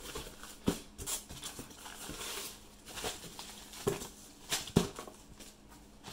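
Unboxing noise: a plastic sheet and paper inserts rustling as a hand rummages in a cardboard box, with several sharp taps and knocks, the loudest pair about four and a half to five seconds in.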